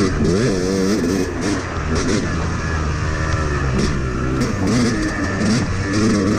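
Yamaha YZ250 single-cylinder two-stroke dirt bike engine under riding load, revving up and down as the throttle is worked, its pitch climbing and dropping several times. The engine has just had a complete top- and bottom-end rebuild and is running well.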